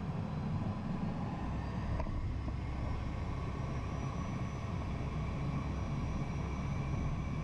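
Williams FJ44 turbofans of a Cessna Citation I heard from inside the cockpit while taxiing: a steady low engine rumble with a faint high whine, and a light click about two seconds in.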